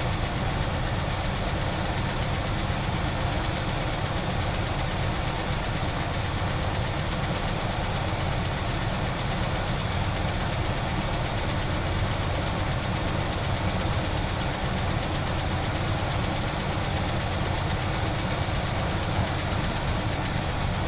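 1976 Chevy Blazer's engine with a Holley 600 four-barrel carburettor idling steadily, freshly restarted after a fuel transfer tube install and not yet warmed up. A steady high whine sits over the engine sound.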